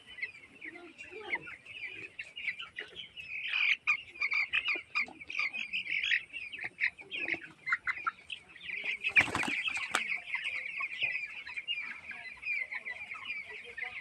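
A flock of 18-day-old broiler chicks peeping and chirping continuously, many high calls overlapping. About two-thirds of the way through there is one brief, loud rustling burst, the loudest moment.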